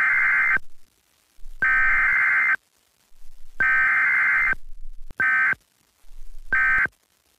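Emergency Alert System digital header tones: three one-second bursts of buzzing two-tone data, each about a second apart. Two much shorter bursts follow in the same tones.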